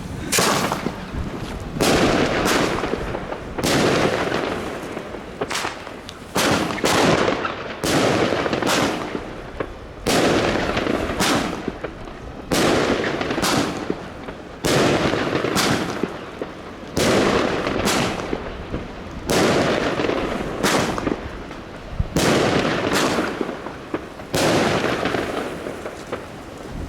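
Consumer firework cake (Nico Feuerwerk Golden Tiger battery) firing shot after shot: a sharp bang about every second or so, each trailing off in a noisy tail of about a second, with a few shots coming closer together.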